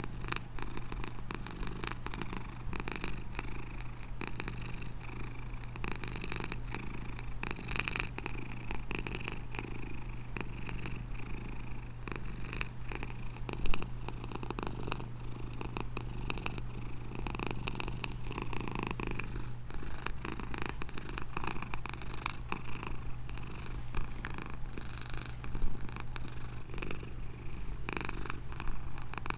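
Domestic cat purring steadily and continuously, with a brief louder click about halfway through and another near the end.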